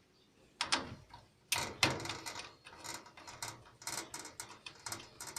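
Irregular metallic clicks, knocks and rattles from hand tools and panel parts being worked on a clothes dryer being taken apart. There is a sharp knock about half a second in, a louder clatter at about a second and a half, then a quick uneven run of clicks.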